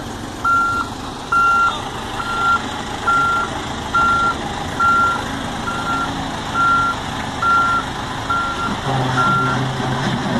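A heavy vehicle's backup alarm beeping at an even pace, a little more than once a second, about a dozen beeps that stop about nine and a half seconds in, over a diesel engine running; the engine note grows louder near the end.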